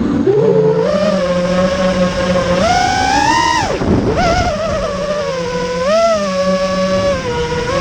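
FPV freestyle quadcopter's brushless motors (iFlight Xing-E 2207 1700KV) and propellers whining, the pitch following the throttle: it climbs in a punch about three seconds in, drops sharply as the throttle is chopped near four seconds, then rises briefly again about six seconds in.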